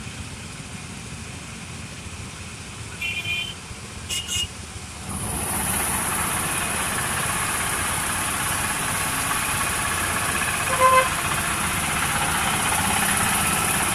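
Road traffic noise with two short horn toots about three and four seconds in; about five seconds in, a louder steady hiss sets in.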